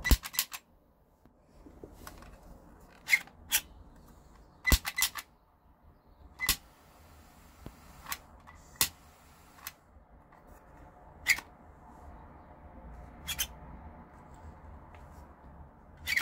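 Replica Glock 18 pistol lighter being handled: sharp plastic-and-metal clicks of its trigger and slide, some single and some in quick runs of two or three, about a dozen spread through. A faint hiss follows one click for a couple of seconds.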